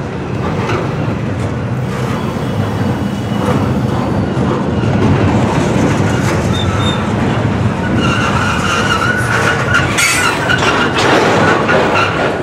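Loaded freight cars of a container train rolling past close by: a loud, steady rumble of steel wheels on rail with clicks over the rail joints. A thin, high wheel squeal joins in about two-thirds of the way through.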